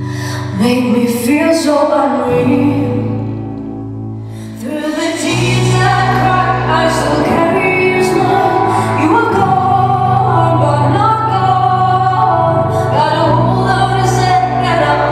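A song with a woman singing over sustained bass and accompaniment. It thins out and drops quieter for a couple of seconds, then comes back fuller about five seconds in.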